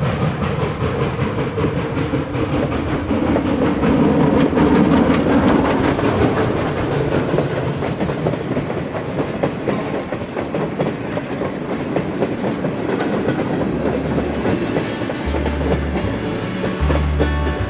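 Replica 1860s-style steam locomotive passing with its train of coaches: exhaust chuffing from the working engine and wheels clicking over the rail joints, loudest about four to six seconds in. Music with low bass notes comes in near the end.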